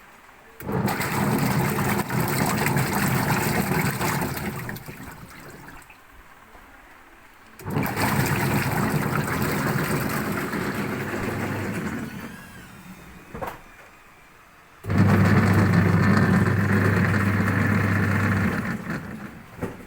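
Twin-tub washing machine motor running with water churning in the tub, switched on in three runs of about four seconds each, the first two winding down and the third cutting off more sharply. A short click sounds between the second and third runs and another near the end.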